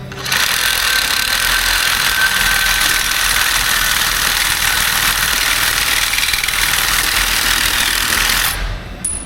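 Power cutting tool running through steel, a steady harsh hiss with a faint whine that starts abruptly just after the start and stops near the end, as part of the Dana 60 axle's support brace is cut away.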